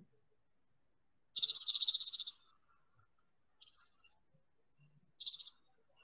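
Chipping sparrow singing: a high, rapid trill of quick repeated notes lasting about a second, then two short bursts of the same trill, around the middle and near the end.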